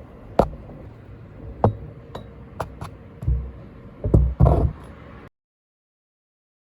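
Metal tools and parts clinking and knocking during car repair work: about six sharp clinks and a few dull thuds, then the sound cuts off suddenly about five seconds in.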